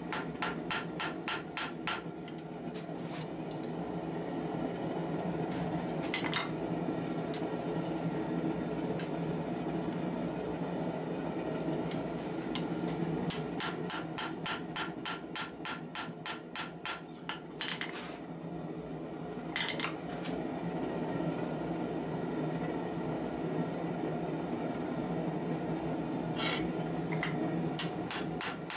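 Hand hammer striking hot 1084 steel on an anvil, forging a knife blade. Two quick runs of about five blows a second, one at the start and one about halfway through, with scattered single blows in between, all over a steady low drone.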